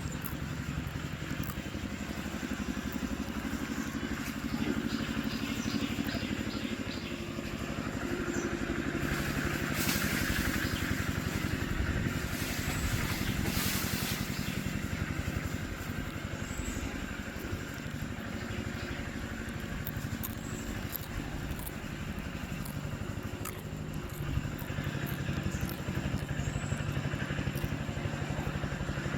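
A motor vehicle engine running steadily, with a rush of noise that swells about ten seconds in and again a few seconds later.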